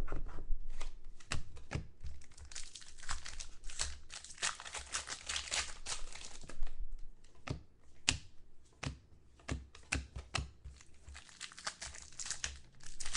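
Trading card pack wrappers being torn open and crinkled by hand, a dense run of sharp crackles and clicks.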